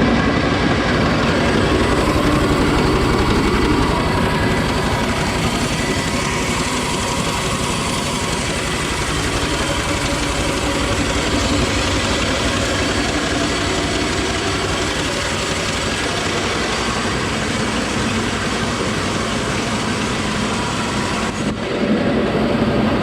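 An old bulgur-cracking mill running steadily, a loud dense mechanical clatter and hum that dips briefly near the end.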